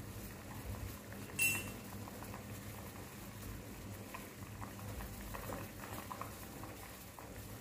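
Coconut brew boiling in a hammered aluminium saucepan over a gas burner: a steady bubbling with small pops and crackles. About a second and a half in comes a single short, sharp clink.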